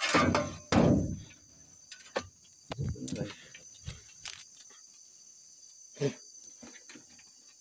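Crickets chirping steadily, with loud knocks and scrapes in the first second and a few scattered knocks later, as a machete is worked at a freshwater stingray's tail.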